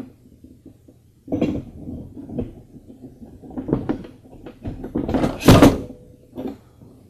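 Delta drill press head being lowered and slid down onto its column: a series of metal clunks and scrapes, the loudest about five and a half seconds in, followed by a brief faint ring.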